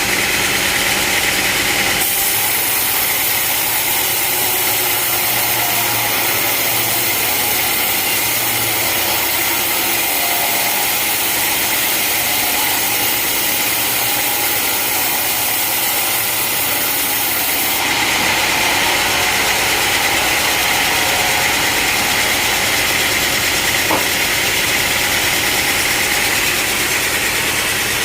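Sawmill engine running steadily, with the saw cutting through a log from about two seconds in until about eighteen seconds, when the cutting hiss drops away and the engine runs on.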